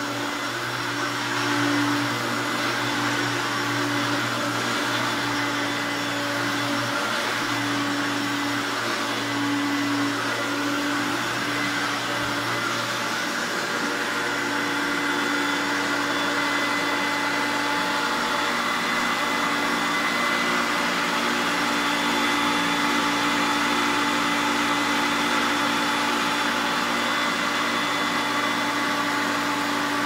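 Hoover Sovereign (Turbopower) upright vacuum cleaner running while it is pushed over carpet: a steady motor hum with a high whine on top.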